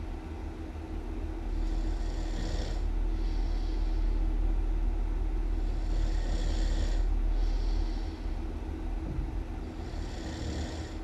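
Really loud snoring over a deep rumble, with a hissy in-and-out breath repeating about every four seconds, three snores in all.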